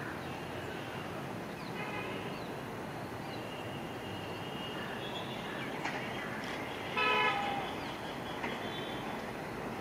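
Twin ALCO WDM 3A diesel locomotives, each with a 16-cylinder ALCO 251 engine, running under power as they approach with a steady, distant rumble. About seven seconds in comes a short horn blast, the loudest sound, with a fainter short toot around two seconds in.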